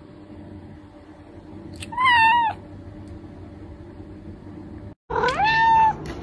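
Two domestic cats meowing, one call each: a short, wavering meow about two seconds in, then after a brief break a longer meow that rises and holds its pitch.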